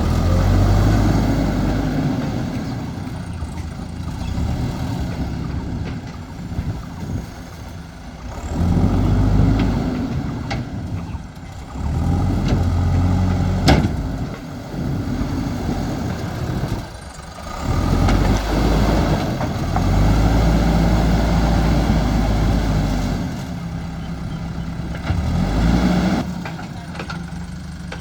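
JCB backhoe loader's diesel engine revving up under load and dropping back to idle, again and again, as it works the ground. There is one sharp clank about halfway through.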